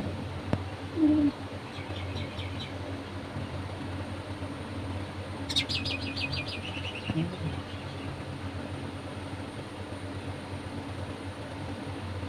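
A small bird chirping: a few faint chirps about two seconds in and a quick falling run of chirps about six seconds in, over a steady low hum. A short low sound about a second in is the loudest moment.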